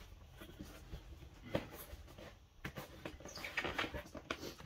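Cardboard packaging being handled: a sharp knock about a second and a half in, with light clicks, then a stretch of cardboard scraping and rustling.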